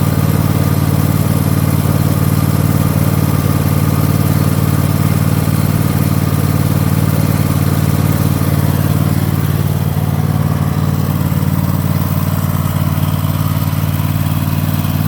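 Cub Cadet XT2 riding lawn mower's Kohler 24 hp V-twin engine running steadily as the mower is driven around in circles.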